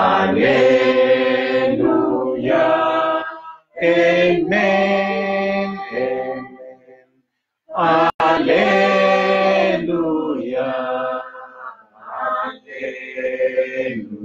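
A man's voice singing a hymn unaccompanied in Luo, in long held phrases with short breaks for breath.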